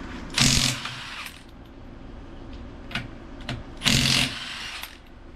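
Impact wrench undoing a car's wheel nuts in two short bursts about three seconds apart, with a couple of clicks between them; the nuts come off easily.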